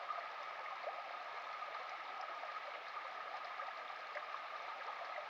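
Shallow burn running over stones and small riffles: a steady babbling and gurgling of flowing water.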